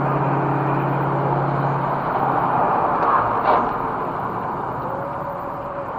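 Road and engine noise of a car cruising at freeway speed, heard from inside through a dashcam. A low steady hum fades out about two seconds in, and there is a brief louder swell about three and a half seconds in.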